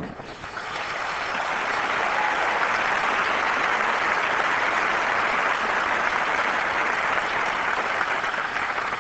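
Large audience applauding, building up over the first second and then holding steady.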